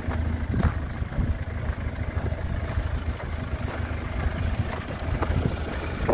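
Kia Sportage's 1.7-litre turbo-diesel engine idling steadily, a low hum, with a few short knocks.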